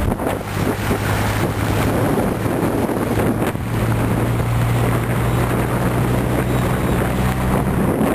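Car engine running steadily and tyres rumbling on a dirt road, heard from inside the moving car, with wind buffeting the microphone. The engine note rises slightly about three and a half seconds in.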